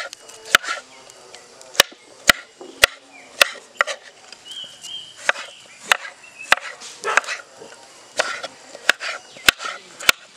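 Kitchen knife slicing tomatoes on a bamboo cutting board: a dozen or so sharp, irregularly spaced knocks as the blade strikes the board.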